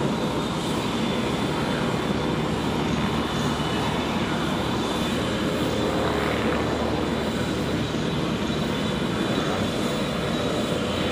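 Pitts S-1S aerobatic biplane's piston engine and propeller running steadily, a continuous drone as the plane flies aerobatic manoeuvres overhead.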